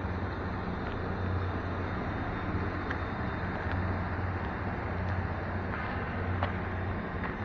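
Steady outdoor background noise with an even low hum and a few faint ticks.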